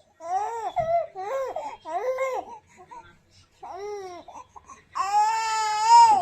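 Baby crying and fussing in a series of short, high-pitched, rising-and-falling wails with pauses between them, then a longer, louder wail near the end.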